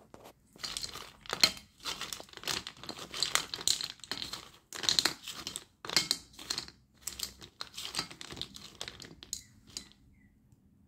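Slate pencils clattering against each other and the stainless steel plate as the plate and pencils are moved about: a dense, irregular run of clicks and scrapes that stops about a second before the end.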